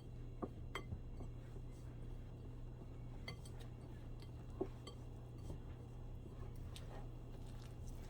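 Irregular light clinks and taps of a kitchen utensil against a mixing bowl while biscuit dough ingredients are worked, over a steady low hum.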